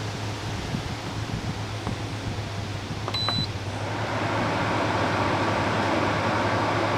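A single short electronic beep from the Frigidaire FAD504DWD dehumidifier's control panel about three seconds in, then the unit's fan starting up and running with a steady rush of air. The compressor has not yet kicked in.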